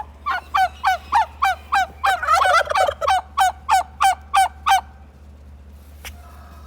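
Domestic turkey gobbling: a quick run of short calls, about four a second, with a denser, overlapping stretch about two seconds in. The calls stop shortly before five seconds in, and a single faint click follows about a second later.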